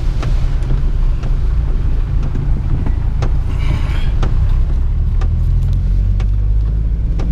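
Car on the move: a steady low rumble of engine and road noise, with scattered sharp ticks through it.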